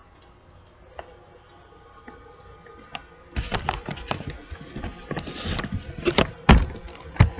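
Handling noise from a hand-held phone being moved: rubbing and knocking on its microphone. It starts about three seconds in, with two sharp knocks near the end.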